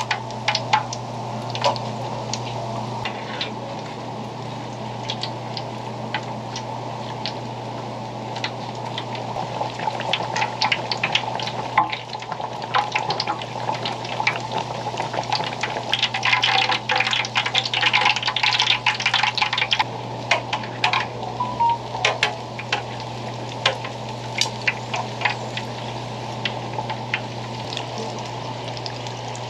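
Fish cake toast deep-frying in a wok of hot oil: steady bubbling and sizzling with many sharp crackles and pops, thickest in the middle. A steady low hum runs underneath.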